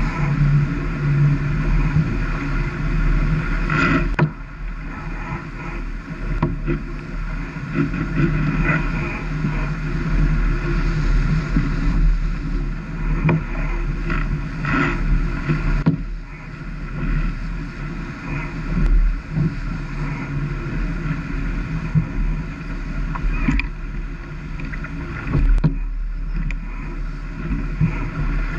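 Wind on the microphone and water rushing along the hull of a J/70 sailboat sailing downwind at 13 to 14 knots: a loud, steady rushing noise with a steady hum beneath it and several brief louder hits.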